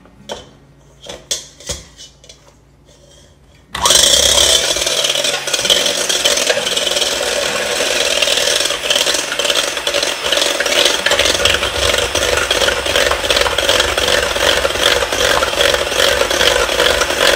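Electric hand mixer whisking whipping cream in a stainless steel bowl. A few light knocks come first. About four seconds in, the mixer switches on and runs steadily, its beaters churning the cream against the bowl.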